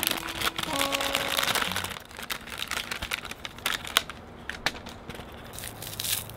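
Crinkling and rustling with scattered sharp clicks, as of something crinkly being handled. Acoustic guitar background music ends about two seconds in.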